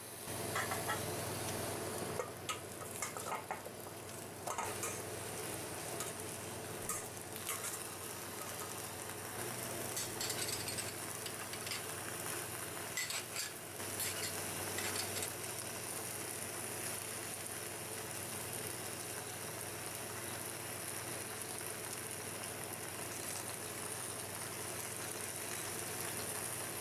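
Hot cast iron Dutch oven sizzling steadily as sliced potatoes, onions, celery and garlic are dropped in around a seared chicken, with scattered knocks and clatters of the pieces landing, mostly in the first half.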